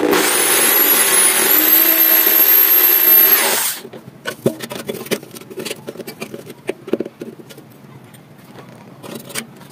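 A handheld power tool runs for about three and a half seconds, with a high whine whose pitch steps up once partway, then cuts off suddenly. Light clicks and knocks follow.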